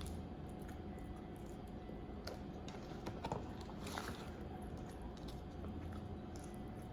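A person chewing and biting food close to the microphone, with small wet mouth clicks and a few sharper ticks, over a low steady background hum.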